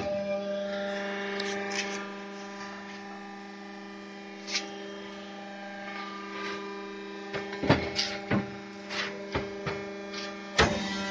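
Steady electrical hum of a concrete block-making machine's hydraulic power unit running. It is overlaid by a single knock about four and a half seconds in, then a cluster of knocks and bumps from handling a pallet of fresh concrete blocks near the end.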